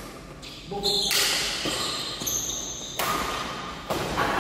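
Badminton racket strikes on the shuttlecock during a doubles rally, a few sharp hits about a second apart, each echoing through a large hall.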